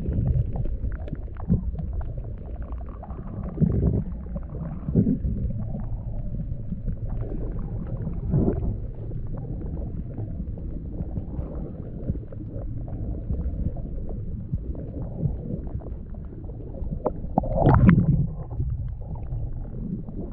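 River current heard with the microphone underwater: a muffled low rumble and gurgle with scattered faint ticks and several louder swells, the biggest near the end.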